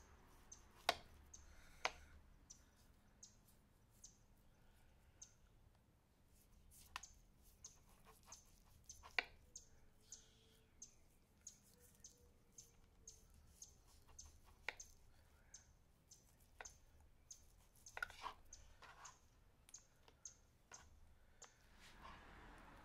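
Knife blade clicking against a plastic cutting board while trimming the fat cap off raw beef steaks: faint, sharp, scattered clicks, with two close together near the end.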